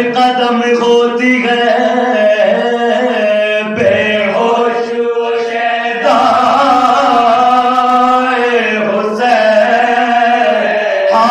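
A group of men chanting an Urdu mourning elegy without instruments: a lead voice at a microphone with several voices singing the melody along with him, over a steady held low note.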